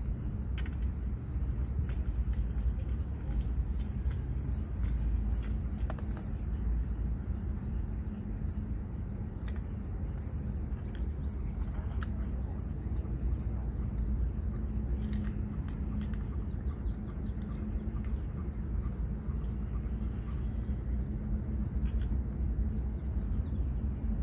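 Small birds chirping in short, irregular calls over a steady low rumble, with a thin steady high tone behind them.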